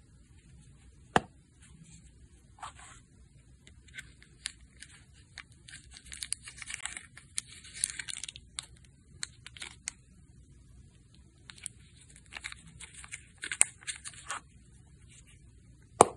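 Thin clear plastic film crinkling and being peeled off a suede watch cushion, in scratchy rustling spells, with a few sharp clicks from handling, the loudest near the end.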